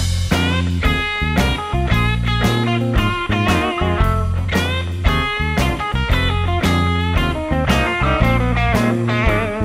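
Blues-rock intro music: guitar with bending, wavering notes over bass and a steady drum beat.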